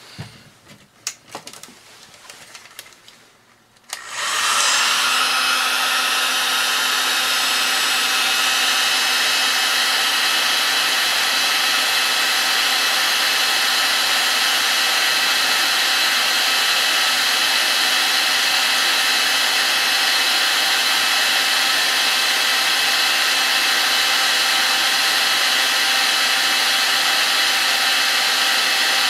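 Electric paint-stripper heat gun switched on about four seconds in, then running steadily: an even rush of blown air with a steady fan whine. A few faint handling clicks come before it starts.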